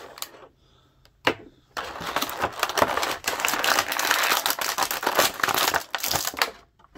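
Clear plastic action-figure packaging being crinkled and ripped: a sharp crack about a second in, then several seconds of dense crackling.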